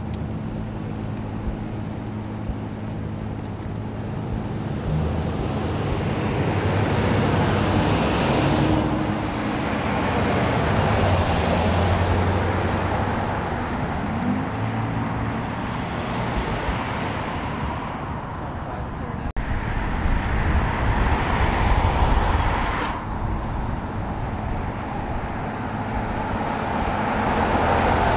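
Cars, SUVs and a pickup truck driving slowly past on a street, engine and tyre noise swelling and fading as each goes by. The loudest passes come about eight seconds in, again around twenty to twenty-two seconds, and near the end.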